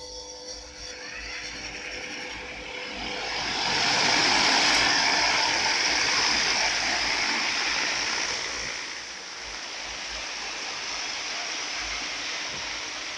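Homemade chicken-coop fan built on a bicycle wheel, spinning up and running: a rushing hiss of moving air that builds over the first few seconds, is loudest around five seconds in, then eases slightly and runs on steadily.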